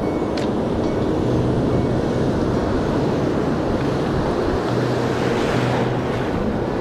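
Steady rush of waves breaking and washing in the shallows, mixed with wind buffeting the microphone.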